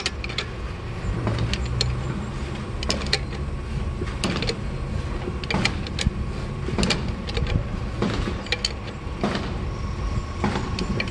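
Sharp metal clicks and clinks at irregular intervals as a screwdriver levers the differential carrier's bearing adjuster nut round against the crown wheel, over a steady low rumble.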